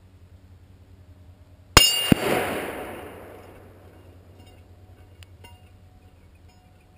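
A rifle bullet from an FN SPR A3G (.308) strikes a steel gong target with a sharp metallic clang that keeps ringing for a few seconds. About a third of a second after the hit, the rifle's distant report arrives and echoes away.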